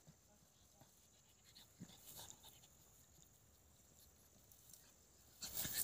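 Mostly near silence, with faint crackles about two seconds in and a louder burst of crackling and rustling near the end: a pug chewing and rolling in dry grass stalks.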